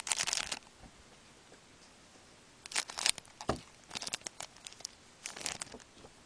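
The wrapper of a 2011-12 Score hockey card pack being torn open and crinkled by hand, in four short bursts of crackling: one at the start, then three more from about three seconds in.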